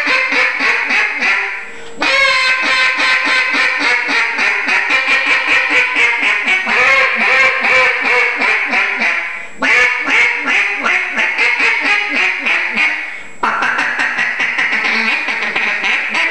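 Bocote-wood single-reed duck call blown in fast runs of quacks imitating a mallard hen, in several phrases with short breaks about 2, 10 and 13 seconds in.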